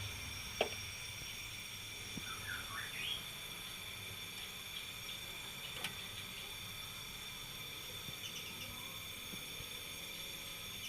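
Quiet outdoor background: a steady high insect drone, a bird chirping briefly a couple of seconds in, and a few sharp clicks.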